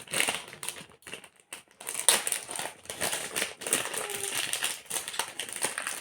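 Plastic packaging crinkling and rustling in irregular bursts, with sharp clicks, as a parcel of baking supplies is unwrapped by hand.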